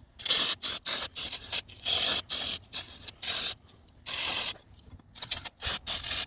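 Aerosol cleaner sprayed in a quick series of short hissing squirts, a dozen or so, with brief gaps between them.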